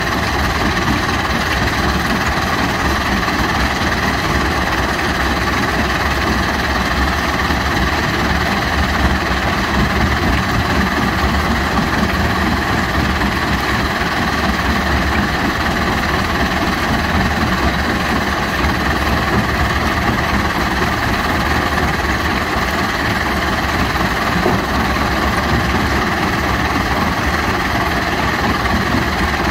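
Jonsson 1208 tracked mobile jaw crusher running together with a screening plant: a loud, steady machinery din of diesel engines and rock being crushed and conveyed.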